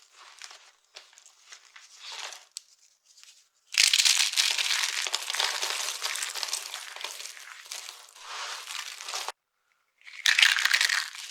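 A dry, brittle, powdery block being crushed and broken up, crisp crunching and crumbling. There are soft scattered crumbles at first; about four seconds in a loud, dense run of crunching starts and lasts several seconds before it cuts off suddenly, and another loud crunch begins near the end.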